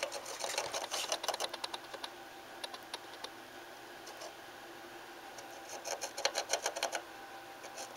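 An unseen animal scratching and digging inside a wall: quick runs of scratches, a busy burst at the start, a few scattered scratches in the middle and another busy burst starting about six seconds in.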